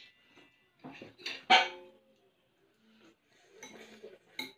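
Spoons and forks clinking against ceramic plates while people eat, a few separate clinks with a short ring after them. The loudest comes about a second and a half in, and a sharp one near the end.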